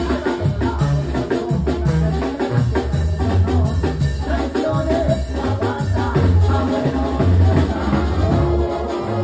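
Live Mexican banda music played loud: a tuba bass line stepping between notes under drums keeping a steady beat, with a singer's voice over the band.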